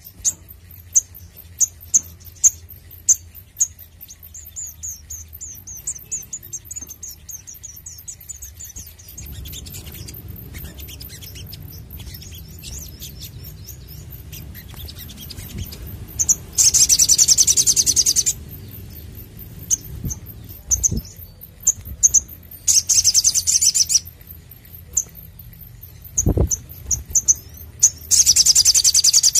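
Male olive-backed sunbird (sogok ontong) singing: quick series of short high chirps, broken three times by loud, dense high-pitched trills of one to two seconds each. A brief low thump comes a few seconds before the end.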